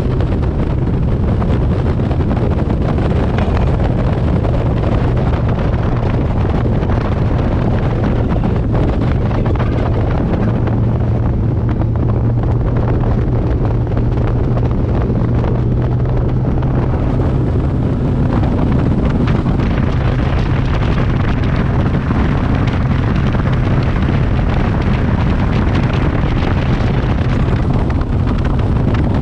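Bass boat's engine running steadily at speed, with wind blowing hard across the microphone.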